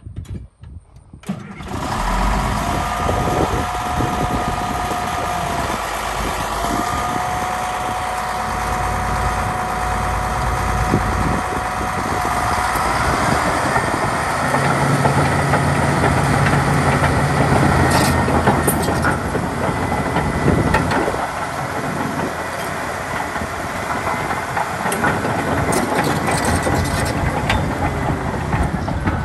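Caterpillar D6H LGP crawler dozer's six-cylinder Cat 3306 diesel starting about a second and a half in, then running and revving, its pitch rising around halfway through. Later there are a few metallic clanks as the machine moves.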